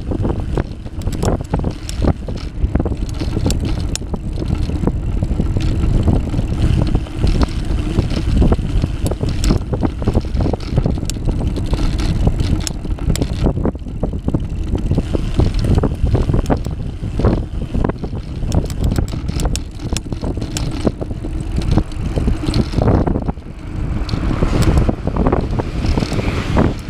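Wind buffeting the microphone of a bicycle-mounted camera while riding, with the rumble of tyres on a concrete path and frequent small knocks and rattles from bumps.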